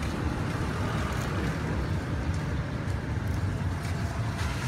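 Steady low rumble of street traffic noise, with a few faint clicks.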